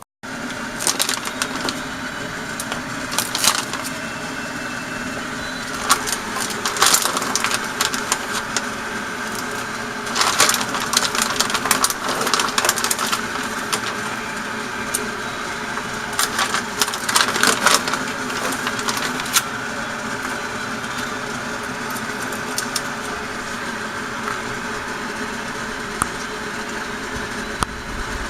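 A pot of frozen seafood curry ingredients cooking on the stove: a steady hiss with irregular crackles and clicks, busier at times.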